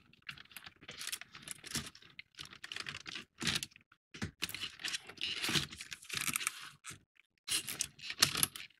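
Irregular light clicks, taps and rattles from a 3D-puzzle model ship being handled and turned around on a desk.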